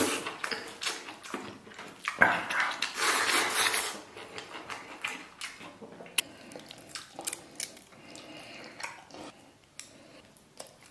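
Chopsticks clicking and scraping against a ceramic rice bowl as rice is eaten from it. The clatter is busiest and loudest from about two to four seconds in, then thins to scattered clicks.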